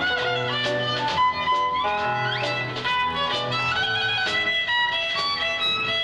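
Small jazz band of violin, piano, upright bass and drums playing a lively tune: the violin carries a quick melody with upward slides over plucked bass notes and piano.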